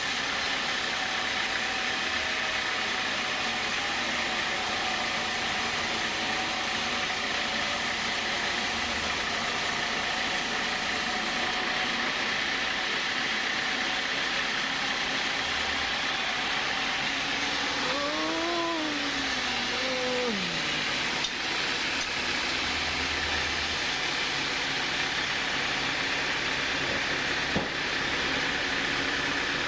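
Sawmill machinery running steadily while sawing teak logs. About two-thirds of the way through, a short pitched sound rises and falls.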